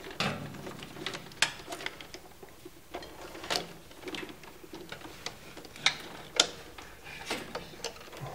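Stiff insulated wires being handled and pulled through a crowded electrical distribution panel: irregular clicks and taps as they knock against plastic breakers and terminal blocks, with light rustling between. The sharpest clicks come about a second and a half in and twice close together around six seconds in.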